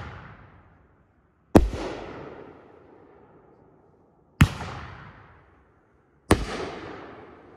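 A 3-inch, 500-gram consumer firework cake firing three shots, a couple of seconds apart. Each is a sharp bang followed by a rumbling echo that fades over a second or two.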